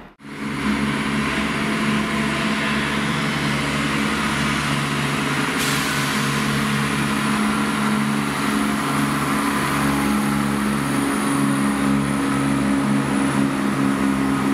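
CrossCountry Class 170 Turbostar diesel multiple unit running past, its diesel engines giving a steady low hum under wheel and rail noise. The hiss grows louder about six seconds in.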